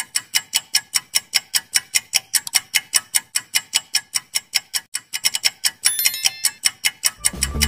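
Clock-ticking sound effect of a quiz countdown timer: rapid, evenly spaced ticks, about five a second, with a brief high ringing about six seconds in.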